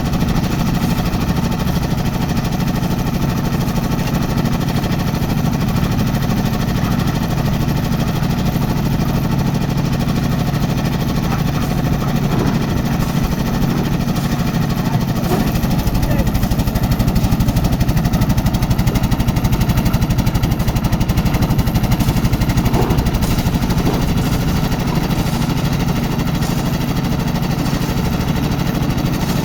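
Concrete mixer machine's engine running steadily under load, with a fast, even, knocking pulse; it gets a little louder partway through.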